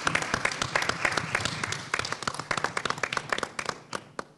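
A small group of people applauding, the clapping thinning out and stopping about four seconds in.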